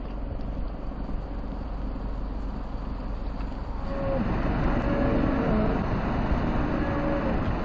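Steady rumble and hiss of wind and rain on a phone microphone, growing a little louder about four seconds in.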